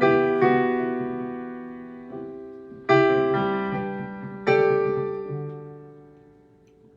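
Piano playing slow, held chords, a new chord struck every second or so, each ringing and fading; the last one dies away near the end.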